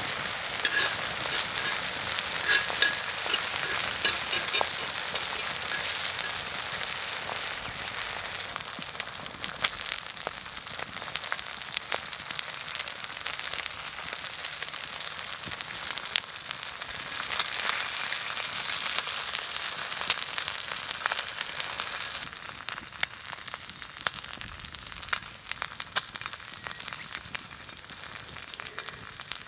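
Food sizzling in fat on a multi griddle pan, a steady hiss with small crackles and pops that eases a little about two-thirds of the way through.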